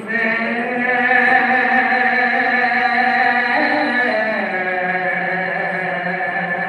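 Soz-o-salam (sozkhwani): male voices chanting an Urdu lament in long, held melodic notes, the melody stepping down in pitch about halfway through.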